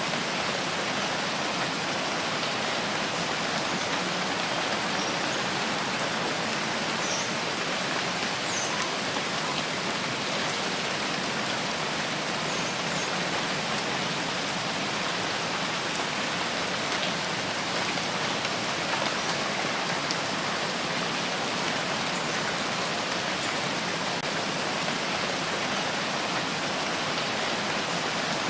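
Rain falling steadily, a constant even hiss of many drops with no let-up or thunder.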